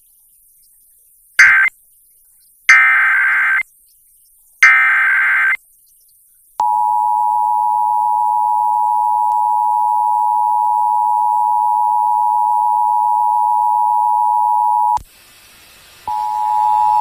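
Emergency Alert System alert tones broadcast over FM radio. First come three short screeching bursts of SAME digital header data encoding a tornado warning, then the steady two-tone EAS attention signal (853 and 960 Hz) for about eight seconds. It cuts off, and after a brief gap another steady tone starts near the end.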